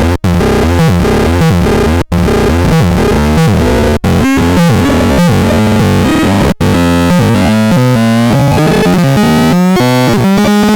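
Electronic synthesizer sounds: stepped low notes under pitches sweeping up and down, cutting out briefly four times in the first seven seconds.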